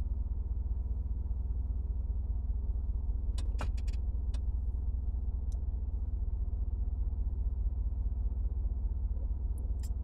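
Steady low machine hum, with a few faint clicks about three and a half to four and a half seconds in.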